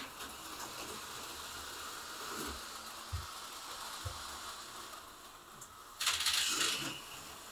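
HO-scale slot car running on plastic track: a faint steady motor whine and rattle, with two light knocks. About six seconds in, a short, loud rattling clatter as a hand reaches onto the track to the car.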